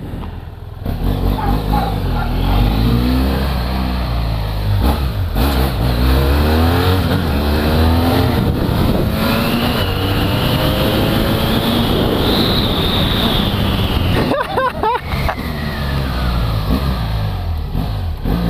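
BMW F800GS parallel-twin engine accelerating hard through several gears, its pitch climbing and dropping back at each upshift, through a pipe-only exhaust. It eases off in the last few seconds.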